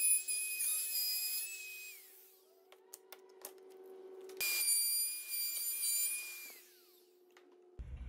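Compact router spinning at full speed with a high, even whine while it cuts a clearance notch in a maple slat support. It winds down with a falling whine about two seconds in, starts again about four and a half seconds in, and winds down once more around six and a half seconds.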